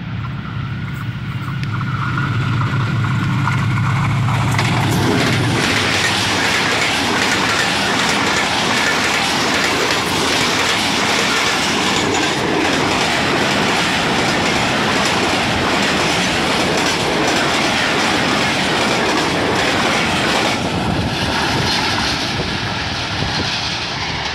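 Pakistan Railways diesel-hauled passenger express passing close by. For the first few seconds the locomotive's engine gives a steady low drone. Then comes a long steady run of wheel and coach noise as the carriages go past, easing a little near the end as the last coach goes by.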